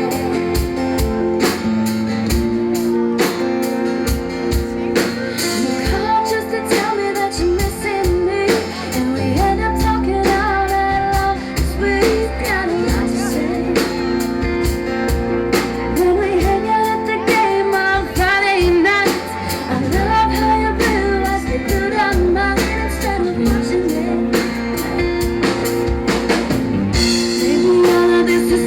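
Live band music: a woman singing a love song over drum kit and guitar.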